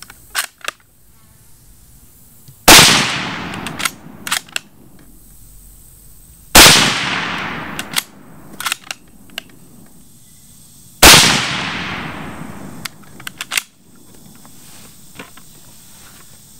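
Three rifle shots from a CZ 527 Carbine bolt-action in 7.62x39, firing Golden Bear 125-grain soft-point rounds about four seconds apart. Each shot rings out for about a second and is followed by a few sharp clicks of the bolt being worked. Two light clicks come just before the first shot.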